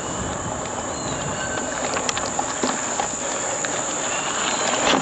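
Insects buzzing steadily in a high band over the rushing noise of a bicycle rolling along a path. The rush grows a little louder near the end.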